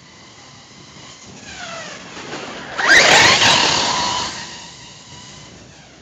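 Hobao Hyper ST Pro RC truck's brushless electric motor whining as it drives past across grass. The whine rises in pitch as it speeds up, peaks loudly about three seconds in with a rush of tyre noise, then fades away.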